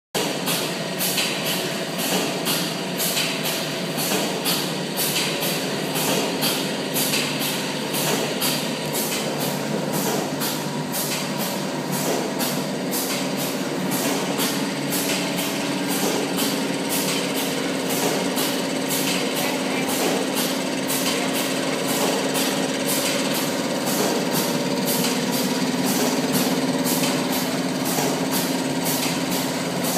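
Automatic box gluing and sealing machine running, with a steady machine hum and a regular clatter from its mechanism, about two strokes a second.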